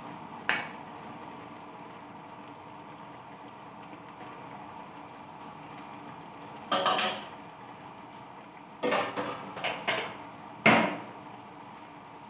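Kitchenware being handled off to the side: sharp knocks and clinks, one about half a second in, a pair around seven seconds and a quick cluster near the end, over a steady background hiss.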